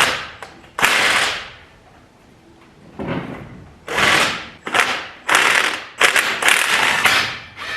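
Impact wrench hammering in about eight short bursts, each starting sharply and dying away, working a stubborn bolt on an engine bracket loose.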